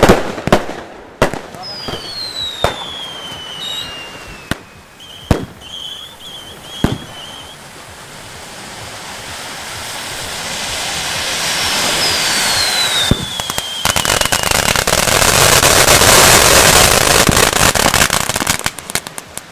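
Consumer fireworks going off: sharp bangs and two falling whistles over the first seconds, with a short burst of crackle. Then a dense crackling rush builds for several seconds, gets loud and stops near the end.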